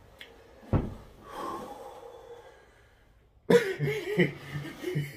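A man breathing out hard from the burn of an extremely hot chili pepper, with a short thump about a second in. A man's voice comes in from about three and a half seconds.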